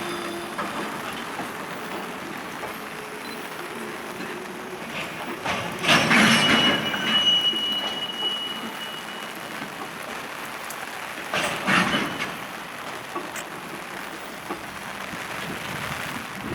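Koki container wagons of a freight train rolling slowly past on braking into the station, with a steady rumble of wheels on rail. Two louder surges about six and twelve seconds in, the first with a high thin squeal lasting a couple of seconds.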